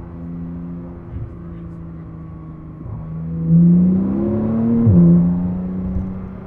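Porsche 911 Turbo S twin-turbo flat-six running through a Fabspeed Valvetronic exhaust, holding steady at first. About three and a half seconds in it gets louder and the revs climb under acceleration, then the pitch drops suddenly just before the five-second mark as it shifts up, and it settles into a steady run.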